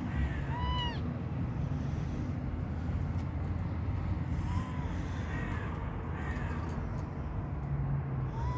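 Kittens mewing: a handful of short, high, arched mews spaced a few seconds apart over a steady low rumble.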